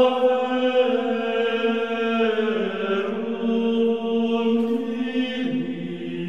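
Slow background music of long held, chant-like notes with rich overtones. The pitch steps down about two and a half seconds in and again near the end.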